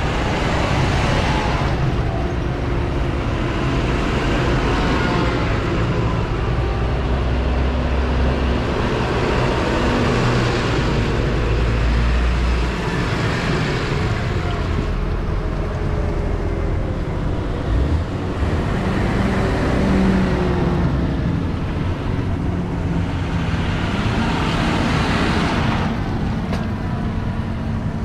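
A line of large diesel farm tractors, New Holland and John Deere, driving past one after another with their engines running. The sound swells as each tractor passes and dies away as the next one approaches.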